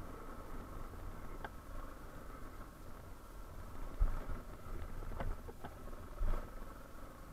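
Yamaha Serow 250's single-cylinder engine running at low revs, with a few sharp clicks and two low thumps, about four and six seconds in.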